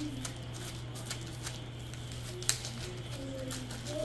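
A spoon stirring food in a pot, with light scrapes and clicks and one sharper clink about two and a half seconds in, over a steady low hum.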